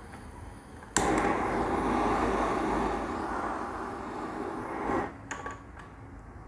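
Handheld butane blowtorch on a gas canister lit with a sharp click about a second in, its flame hissing steadily for about four seconds before it is shut off; a few small clicks follow.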